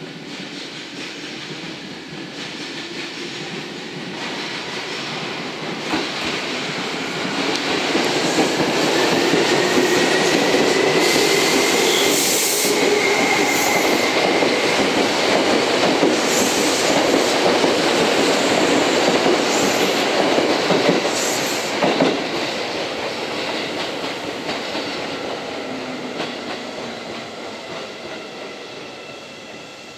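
Seibu 2000-series electric train pulling out and passing close by, its traction motors whining upward in pitch as it speeds up, with wheels knocking over rail joints. The running noise builds, is loudest for the middle stretch, then fades as the train goes away.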